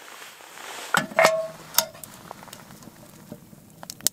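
A spoon knocking and scraping against a bowl during a meal. A few sharp clinks come about a second in, two of them ringing briefly, followed by softer scattered ticks.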